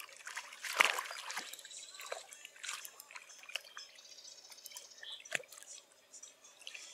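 Lake water splashing and dripping in short, irregular splashes, the loudest about a second in.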